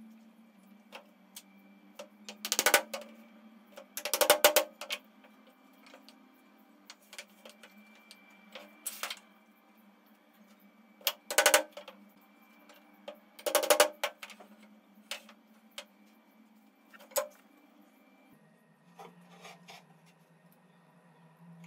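Sharp wooden knocks on a wooden workbench: pine pieces are set down and tapped together in several short clusters of quick knocks, with pauses between.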